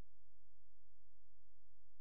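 A steady low hum with nothing else heard above it; no rush of the whitewater comes through.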